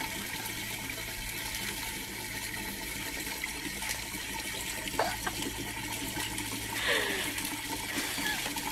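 Water running steadily from an outdoor wall tap in a thin stream.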